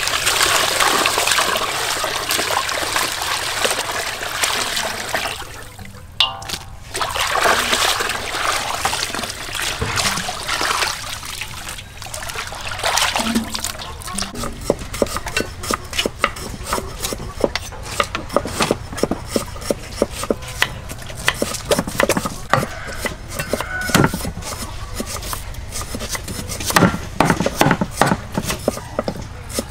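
Water pouring and splashing over fish heads in a metal basin as they are rinsed by hand. Over the second half, a dense run of quick, irregular knocks from a cleaver chopping raw chicken and a knife mincing garlic on wooden boards.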